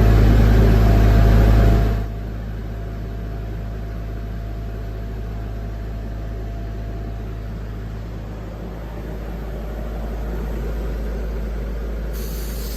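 Diesel engine of a portable screw air compressor running loud, then dropping abruptly about two seconds in to a steadier, quieter run as it settles into idle warm-up while air pressure builds.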